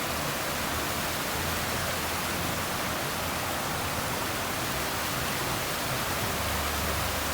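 Steady rushing of falling water, an even noise that does not change.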